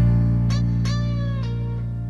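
The final chord of a hymn's instrumental backing ringing out and slowly fading, with three short guitar notes sliding downward in pitch over it.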